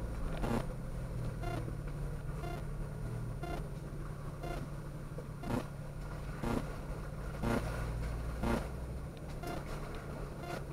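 Jeep engine running steadily at low speed as it crawls along a wet, rutted dirt trail, with a sharp click repeating about once a second.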